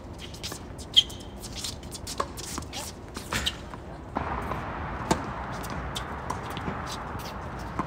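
Tennis ball being hit by racquets and bouncing on a hard court in a doubles rally: a string of sharp pocks, the loudest about a second in, with several more hits and bounces over the following seconds.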